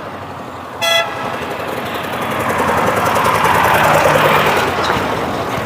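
A short car horn toot about a second in, then a vehicle's engine and road noise swelling and fading as it drives past.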